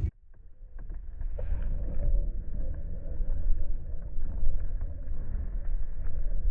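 Strong wind buffeting the camera microphone: a steady low rumble that starts abruptly and builds over the first second or two, with a few faint light ticks on top.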